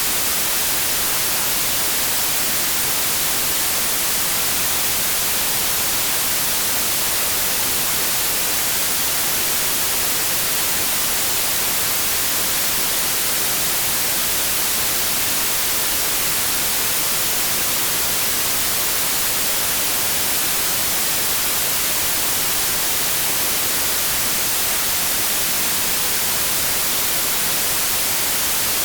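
Continuous white noise: a steady, even hiss with no changes.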